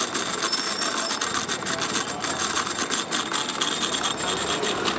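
Cotton candy machine running, its spinner head whirling in the pan while spinning out sugar floss, with a steady mechanical noise.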